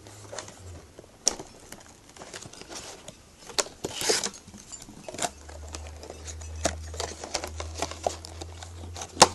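A product box and its packaging being handled and pried open by hand: scattered clicks, taps and scrapes, with a brief rustling scrape about four seconds in and a sharp knock near the end. A steady low hum comes in about halfway through.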